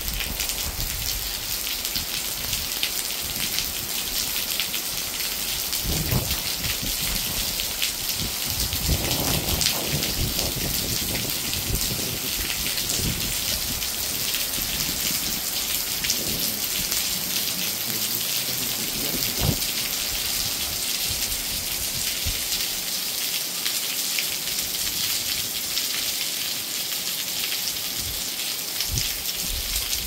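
Heavy rain falling steadily on trees and ground: a dense, even hiss of drops with fine pattering. A few brief low rumbles come through now and then.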